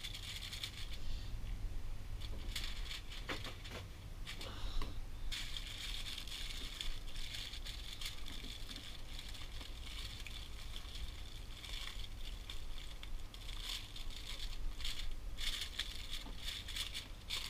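Aluminium foil crinkling and crackling as hands fold and crimp a foil packet shut, coming in irregular bursts of handling.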